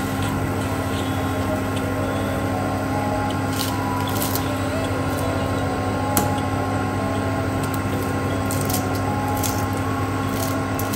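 Water heating in a stainless steel pot under a steady hum, with a few light clicks and soft splashes as leafy greens are dropped in.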